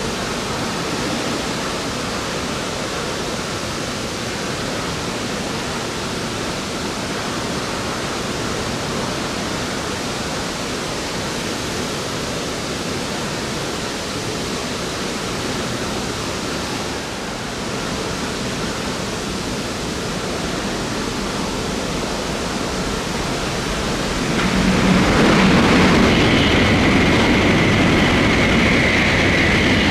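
Snow-melting sprinklers spraying water over Shinkansen tracks, a steady hiss of spray. About 24 seconds in, a Joetsu Shinkansen train passes through at speed. It is louder, with a low rumble and a steady high whine.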